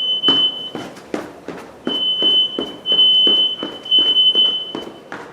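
Household smoke alarm sounding a high steady horn tone after being set off with aerosol test smoke. It cuts out about three-quarters of a second in and then sounds again for about three seconds. Footsteps on a hard floor run beneath it at about three a second.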